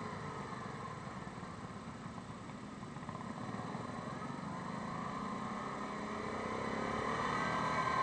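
Yamaha Grizzly 550 ATV's single-cylinder engine running at low road speed, easing off and then picking up speed again over the last few seconds.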